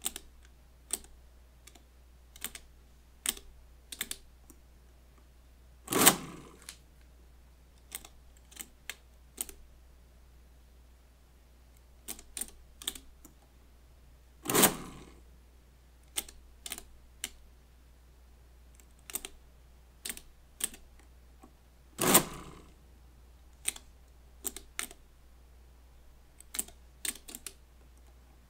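Friden STW-10 electromechanical calculator: short sharp clicks as number keys on its full keyboard are pressed one by one, and three times a louder clatter lasting about a second as the machine runs an addition cycle.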